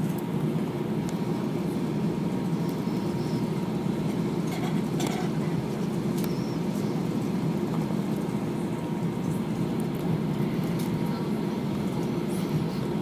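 Steady hum of an Airbus A320's engines and airflow heard inside the passenger cabin, even in level throughout, with a faint click about five seconds in.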